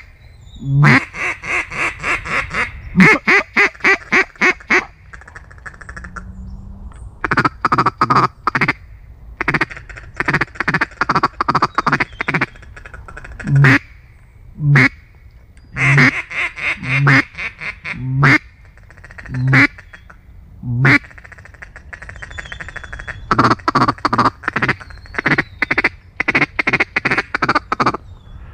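Mallard quacking: loud runs of quick, nasal quacks, about three a second, repeated with short pauses between runs.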